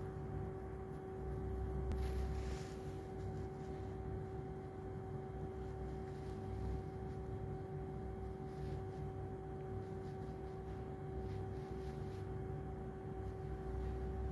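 Steady electrical hum from an ÖBB electric train standing at the platform: one constant pitch with its octave, over a low rumble.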